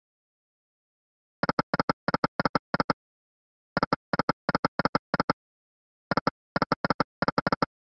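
Online slot game's reel sounds: three runs of quick electronic clicks, one run per spin, starting about a second and a half in and spaced about two seconds apart.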